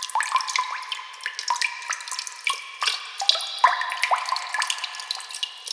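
Water drops falling into water: an uneven run of short plinks, each rising quickly in pitch, a few a second.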